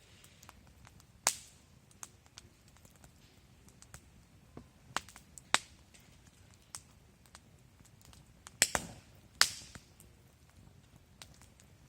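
Wood fire crackling in a Picogrill fire pit, with irregular sharp pops over a faint background hiss; one loud pop a little after a second in and a cluster of three loud pops in the last third.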